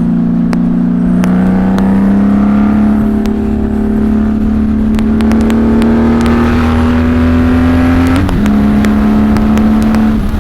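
Honda Valkyrie's flat-six engine through Cobra six-into-six exhaust pipes, pulling at freeway speed. The pitch climbs slowly, dips briefly about eight seconds in, then holds steady. It is heard from inside the rider's helmet with wind noise.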